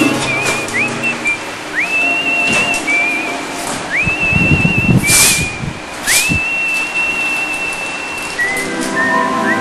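A tune whistled in long wavering notes, each one sliding up into its pitch, with a few knocks and thumps underneath. Near the end the whistling drops lower and backing music comes in beneath it.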